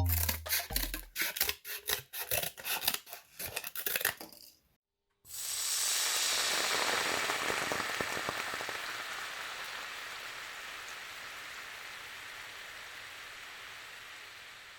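Percussive music clicks for the first four seconds, then, after a short silence, a steady sizzling hiss with fine crackles that slowly fades over about ten seconds.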